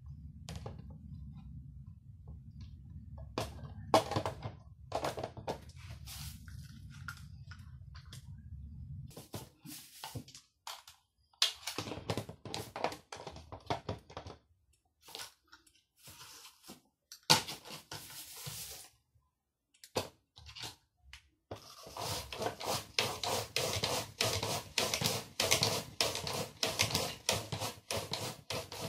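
Red plastic mandoline slicer being handled: scattered clicks and knocks of plastic parts over a low hum that stops about nine seconds in, then scraping bursts. Near the end comes a long run of rapid, repeated scraping strokes as a vegetable in the hand guard is pushed back and forth over the grating blade.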